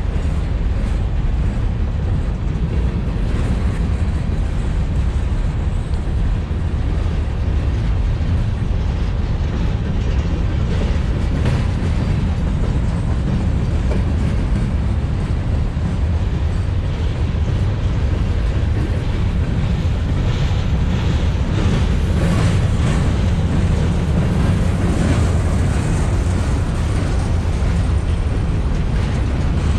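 Freight train cars rolling slowly past, a steady low rumble with scattered knocks and clacks from the wheels and couplings.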